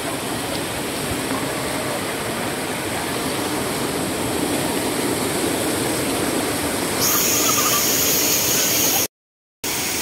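Waterfall rushing: a steady noise of falling water that becomes louder and hissier about seven seconds in, then cuts out for about half a second near the end.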